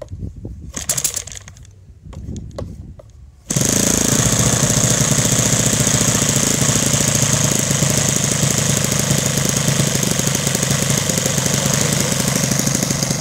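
Saito FA-180 four-stroke model airplane engine, converted to gasoline with spark ignition, being hand-flipped by its propeller with a few scattered clicks and knocks. About three and a half seconds in it catches suddenly and runs loud and steady with a fast, even beat.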